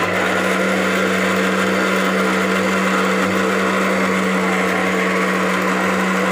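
Electric kitchen mixer grinder running at a steady speed with a constant motor hum, grinding roasted peanuts into chutney.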